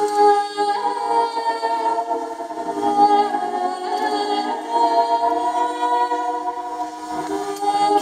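Organistrum, a large medieval hurdy-gurdy played by two people, sounding two steady drone notes under a slow melody of long held notes that changes pitch every second or two.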